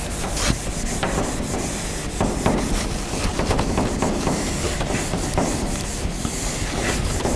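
Whiteboard eraser rubbing across a whiteboard in repeated, irregular back-and-forth strokes, wiping writing off the board.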